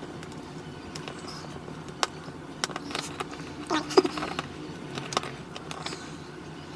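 Sparse small clicks and taps of a hobby knife cutting and trimming a small sculpted toy foot, with the piece and tools handled between the fingers.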